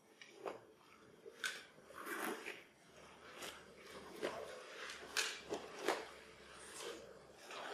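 Long strips of paper swished through the air and rustling, in irregular short strokes, the loudest a little past halfway.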